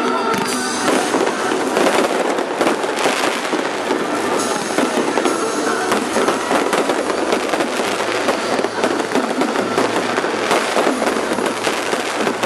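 Aerial fireworks display: a dense, continuous barrage of bangs and crackling with no pause.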